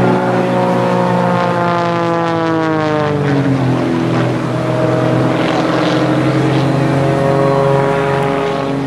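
Christen Eagle aerobatic biplane's piston engine and propeller droning overhead. Its pitch sweeps down about two to three seconds in, then climbs again near the end as the plane manoeuvres.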